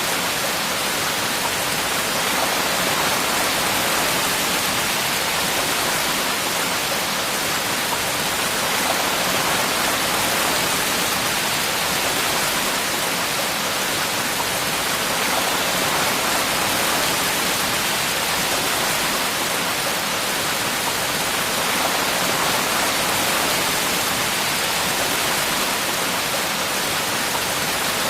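Steady falling rain: a dense, even hiss with no separate drops standing out, unchanging throughout.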